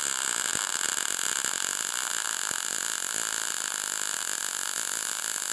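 MIG welding arc from a Jasic MIG 160 running 0.8 mm wire on 2 mm steel under argon/CO2 shielding gas, laying a fillet weld: a steady crackling sizzle. The voltage trim is set a volt below the machine's synergic setting, to crown up the bead.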